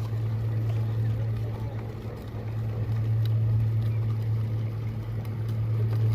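LST800 geomembrane welding machine running with a steady low hum, with faint ticks over it.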